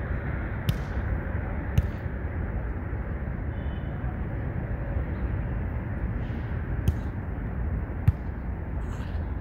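A volleyball being struck by players' hands and forearms: four sharp slaps, two about a second apart near the start and two more about a second apart near the end. Underneath runs a steady low rumble of traffic.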